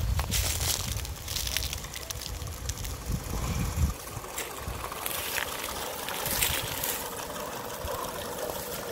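Live steam model of an LMS Jubilee 4-6-0 locomotive running past with its train, with a steady hiss of steam and soft exhaust. A low rumble runs through the first four seconds.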